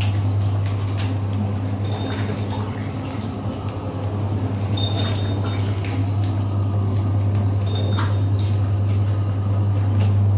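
Liquid pouch packing machine running: a steady low electrical hum with scattered mechanical clicks and knocks, and a short high-pitched tone about every three seconds.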